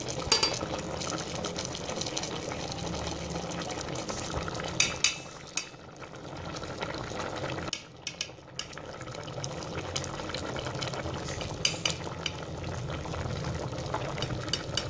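Chana dal and chicken simmering in water in an aluminium pot, with a steady bubbling, and a few sharp clicks of a metal fork against the pot as the chicken pieces are lifted out.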